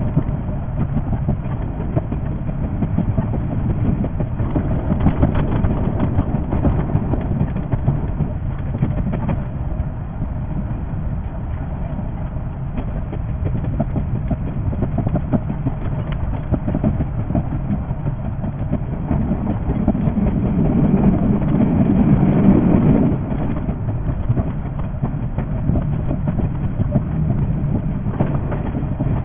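A 381 series electric express train running, heard from the cab: a steady rumble of wheels on rail with a dense, fine rattle. The low rumble swells about two-thirds of the way through and then drops off suddenly.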